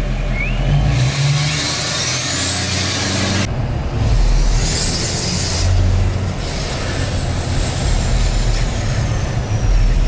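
Pickup truck driving, heard from inside the cab: steady road and engine rumble with a dense noise over it, broken by a cut about three and a half seconds in.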